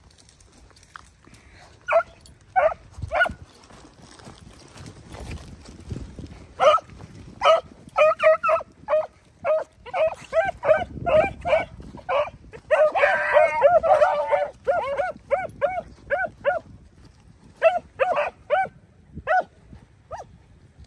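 Beagles giving voice on a rabbit's scent: short, pitched yelping barks, a few about 2 s in, then a steady string from about 7 s on. Around 13 to 14 s several hounds bark at once.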